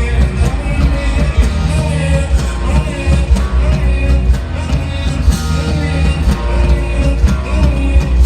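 Live concert music: a loud song with heavy, pulsing bass and singing over it.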